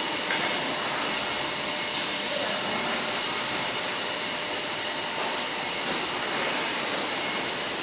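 Automatic feed-bagging and palletizing line running: conveyors and a robotic palletizer arm give a steady mechanical hiss with a few faint steady whines, and a brief falling whine about two seconds in.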